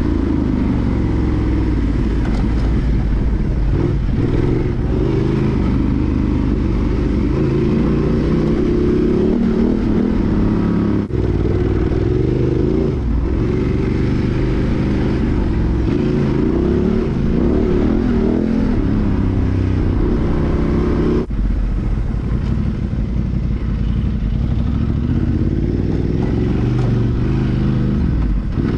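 Honda Transalp XL750's 755 cc parallel-twin engine, breathing through a Mivv Dakar exhaust and Arrow decat pipe, revving up and down without let-up under off-road riding. The note drops out briefly a few times, about a third of the way in, about two-thirds through and near the end.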